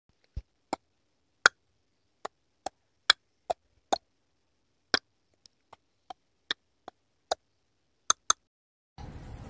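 Synthetic intro-animation sound effects: a series of sharp digital clicks and ticks at uneven spacing, about twenty in all, with the last two coming as a quick pair. A steady hiss of room noise comes in just before the end.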